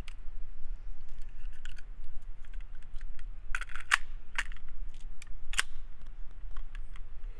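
Small metal clicks of 9mm rounds being pressed into a Hi-Point C9 pistol magazine. A little past halfway come a few louder, sharper clacks as the magazine goes into the pistol and the gun is handled.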